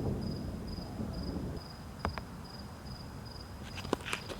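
A cricket chirping in a steady, high-pitched pulse, about two chirps a second, over the low rumble of distant thunder dying away in the first second or so. A couple of faint clicks near the middle and end.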